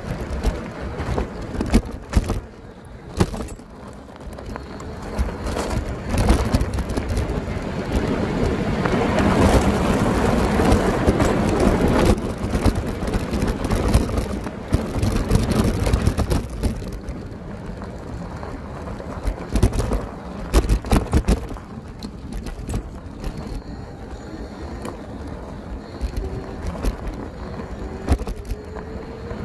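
Electric bike ridden over rough off-road ground: steady tyre and riding noise broken by frequent knocks and rattles from bumps. A rushing noise swells and fades about a third of the way in, and a faint rising whine comes near the end.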